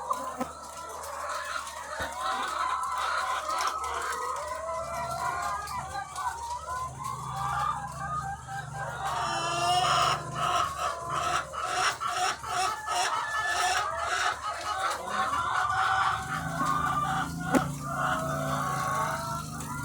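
A large flock of egg-laying hens clucking and squawking, many calls overlapping into a dense continuous chorus that grows louder and busier about halfway through, over a steady low hum.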